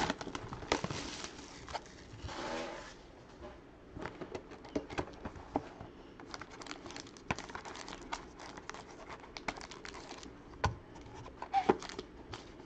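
Plastic wrapping crinkling and tearing, with scattered taps and clicks of cardboard and packs being handled, as a trading-card box is opened. Two short bursts of rustling come in the first few seconds, then irregular light knocks and clicks.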